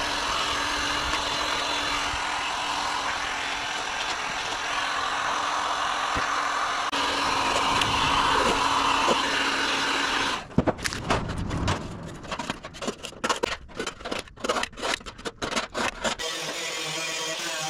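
Hot air gun blowing steadily, switched off abruptly about ten seconds in. A quick run of short, irregular strokes follows, and music comes in near the end.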